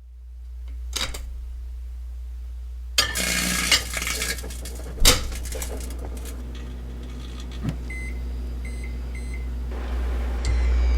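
Microwave oven in use over a steady low hum: clicks and a clatter like the door and a dish, then a run of short, high keypad beeps, with the hum swelling near the end as it starts running.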